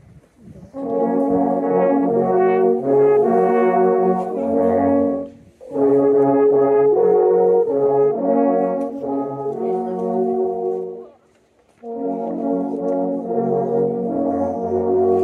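An alphorn ensemble playing a slow piece in harmony on long wooden horns, several horns holding sustained notes together. The music comes in three phrases, with a short break about five seconds in and a longer pause around eleven seconds.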